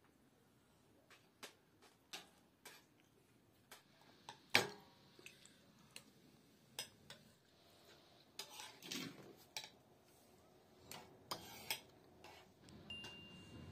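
Metal spoons clinking against soup bowls as people eat, scattered light clicks with one louder clink about four and a half seconds in.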